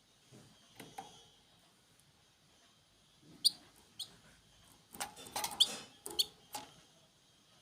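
Small birds giving short, high chirps, a handful of them clustered past the middle, among scattered clicks and taps.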